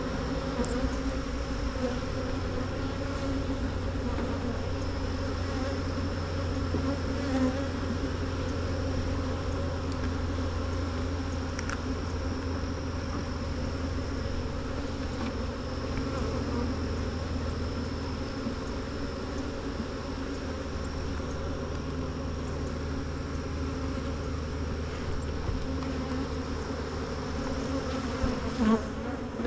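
Many honeybees buzzing together in a steady, continuous hum, with a few faint knocks from the hive being handled.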